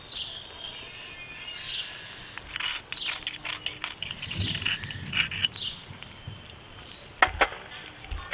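Small birds chirping repeatedly in short high calls, with a spoon scraping and clinking against a small bowl as sauce is scraped out; the sharpest clink comes about seven seconds in.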